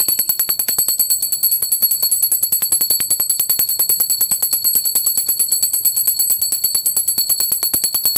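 Puja hand bell (ghanti) rung rapidly and without pause during aarti, about ten clapper strikes a second, over a steady high ringing.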